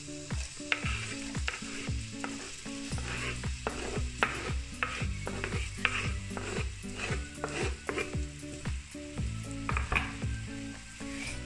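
Chopped onion sizzling in hot oil in a stainless steel pot, with a plastic slotted spatula scraping it off a wooden chopping board and stirring it, giving repeated short scrapes and knocks over the frying.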